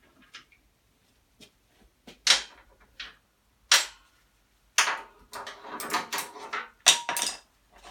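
Hand tools knocking and clattering against metal while a motorcycle engine is being unbolted: four or so single sharp knocks, then a busy run of metallic clinking and rattling in the second half.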